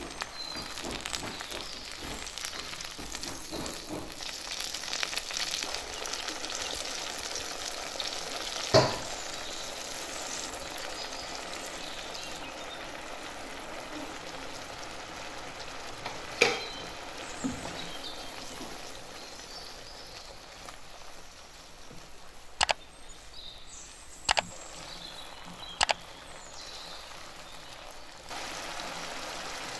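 A tomato and green chilli paste sizzling as it fries in hot fat in a non-stick pan, stirred with a spatula. About five sharp knocks stand out over the steady sizzle, spread through.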